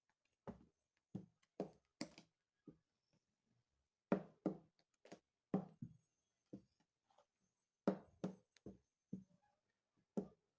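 Irregular sharp knocks and taps, about fifteen of them, from kitchen bowls and containers being handled and set down.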